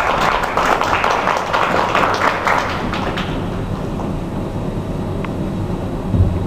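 Audience clapping as a children's song ends, scattered and fading out after about three seconds, then a steady low hum of the hall with a soft thud near the end.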